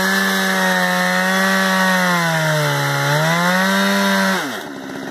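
Two-stroke chainsaw mounted in a chainsaw mill running at full throttle as it rips lengthwise through a log; the engine note sags under load for about a second and recovers. About four seconds in, the throttle is released and the engine drops to a low idle.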